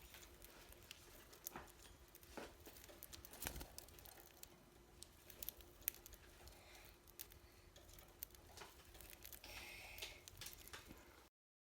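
Faint, scattered small clicks and taps of a budgie pecking at seed held in a hand, over quiet room tone. They stop abruptly near the end.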